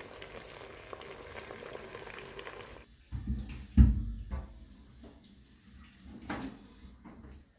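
Low steady sizzle of beef wet fry simmering in the pan, then a sudden drop in level and a few dull knocks and thumps of handling, the loudest nearly four seconds in.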